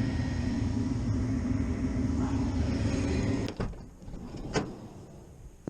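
Furnace running with a steady low hum after its control board's relay contacts were taped closed to restore heat. About three and a half seconds in the hum drops away abruptly, followed by a couple of sharp knocks.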